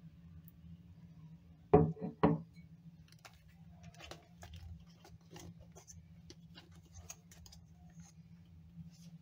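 Glass beer bottle set down on a countertop with three quick clunks close together, followed by faint scattered clicks of handling, over a low steady hum.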